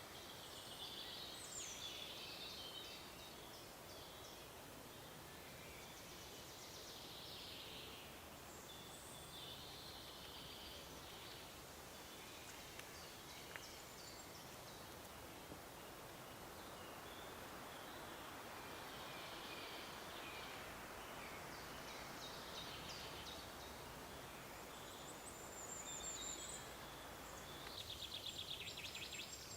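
Faint forest ambience: small birds singing and calling in short phrases, with a fast trill near the end, over a steady background hiss.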